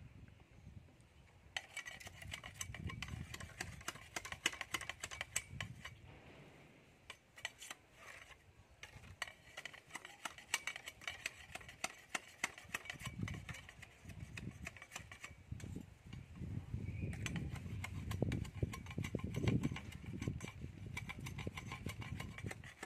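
Kitchen knife scraping and cutting a fish as it is cleaned: long runs of rapid scraping strokes with a few short pauses, and low thuds of handling.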